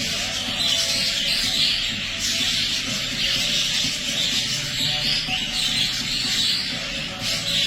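Budgerigar chick chirping and chattering in irregular bursts, over background music.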